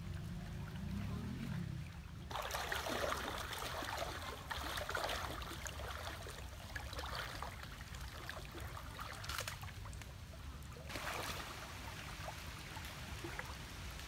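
River water sloshing and splashing around a person's legs as she wades through thigh-deep water, starting about two seconds in and easing briefly near the ten-second mark. A low steady rumble runs underneath.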